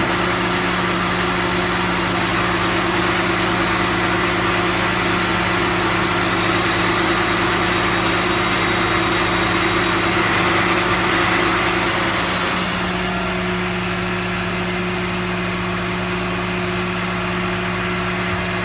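Heavy truck diesel engine idling steadily: a constant low hum with a faint high whine, a little quieter about two-thirds of the way through.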